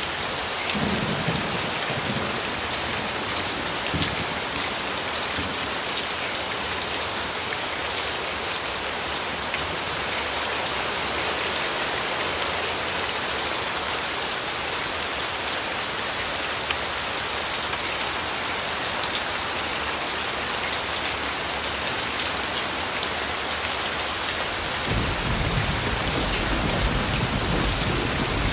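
Steady rain falling on a surface: an even hiss with scattered drop ticks. A low rumble comes in near the end.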